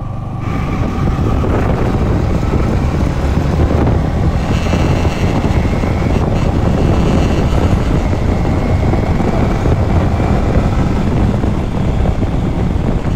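Yamaha MT-15's 155 cc single-cylinder engine pulling under acceleration on the move, with heavy wind noise on the microphone. The revs climb in the first second or two. It carries the rattling 'kirkir' noise that the owner says sets in once the revs reach about 5,000–6,000 rpm, a fault he is pursuing under warranty.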